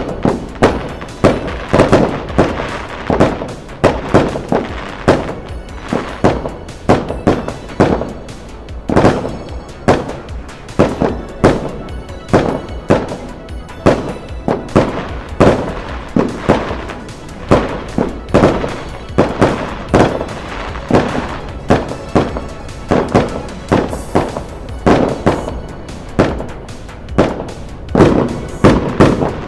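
Fireworks going off in quick succession, a dense run of sharp bangs about two or three a second without a break, with music playing alongside.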